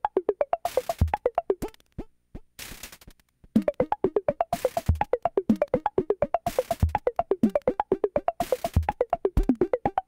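Chiptune music from a Game Boy running a Nanoloop Mono cartridge: a fast run of short square-wave notes over clicks, bursts of hiss from the noise channel, and a low thump about every two seconds. About two seconds in the notes drop out for a second and a half, leaving hiss and a few clicks, then the pattern resumes.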